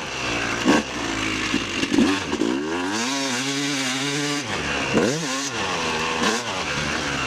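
Yamaha YZ250 two-stroke dirt bike engine being ridden, the revs repeatedly dropping and climbing as the throttle is blipped and rolled on, with a longer steady pull in the middle.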